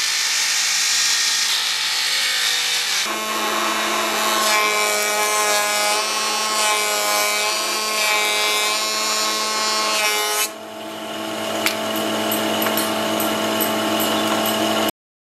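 Woodworking table saw ripping a strip of wood, a dense hiss for about three seconds. A planer on the same machine then runs with a steady pitched tone while its cutterhead planes a board, until about ten seconds in. After that the machine runs unloaded with light regular ticks, and the sound cuts off abruptly near the end.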